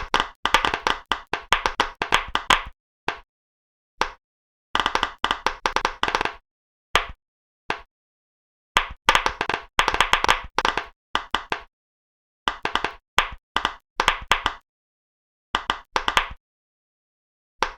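Pop-it fidget toy bubbles popping: bursts of quick, sharp pops, several a second, broken by short gaps of silence.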